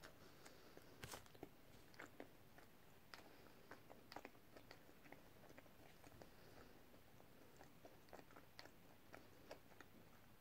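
Faint chewing of a mouthful of triple cheeseburger: a scatter of small, soft mouth clicks and smacks, the sharpest about a second in.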